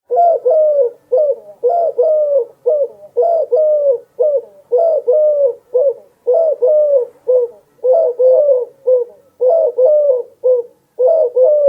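Dove cooing in quick phrases of three or four short, falling coos, repeated over and over about every second and a half.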